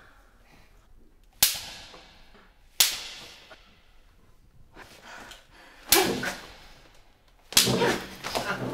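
Four sharp whip cracks from a riding crop, spaced a second or more apart, each with a short ringing tail; the last is followed by a burst of rougher noise.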